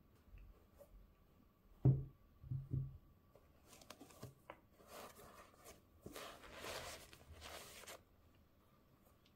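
Hands unpacking a shoebox: a few dull knocks of the box about two seconds in, then paper packaging rustling and crinkling in several spells.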